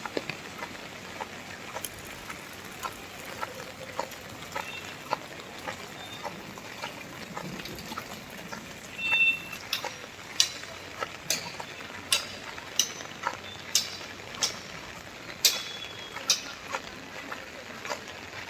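Irregular sharp taps over a steady hiss, becoming louder and more frequent about halfway through.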